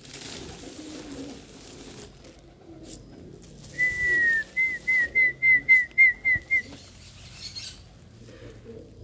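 A clear whistle starting about four seconds in: one long falling note, then about eight short, quick notes at the same pitch, over faint low pigeon cooing.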